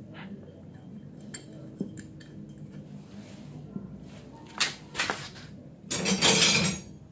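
Small metal clicks and clinks of hand work on an aluminium scooter cylinder head and its camshaft retaining bolt, with a louder clatter of metal parts about six seconds in.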